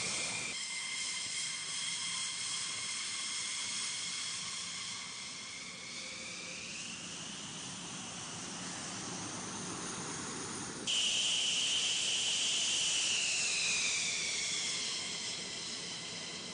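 F-15E Strike Eagle jet engines running at taxi power: a high whistling turbine whine over a steady hiss. The pitch slides up partway through and down again later. The sound changes abruptly twice, about half a second in and about eleven seconds in, and is louder after the second change.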